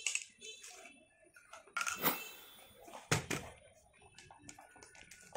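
Crinkly plastic wrapping rustling and a hard plastic toy tray being handled, with a louder rustle about two seconds in and a sharp plastic knock just after three seconds.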